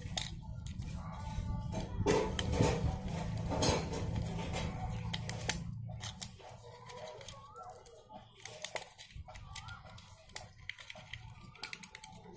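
Irregular light clicks and taps of plastic parts as a tape measure's case and spool housing are handled and fitted together.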